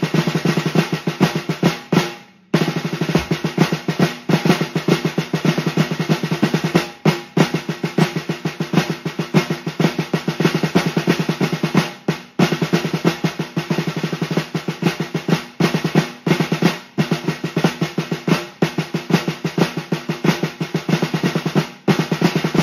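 Snare drum played fast with the Swiss army triplet (Swiss flam tap) rudiment: a dense run of flams and taps in phrases of about five seconds, each broken by a brief pause.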